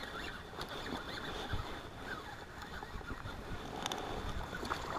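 Wind buffeting the microphone: an uneven low rumble, with a few faint clicks.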